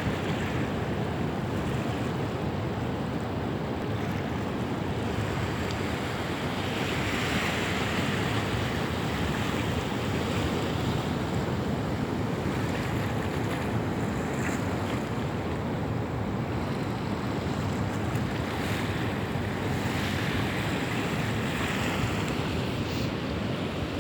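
Ocean surf washing ashore in a continuous rush, with two louder breaking washes, one about a third of the way in and another near the end.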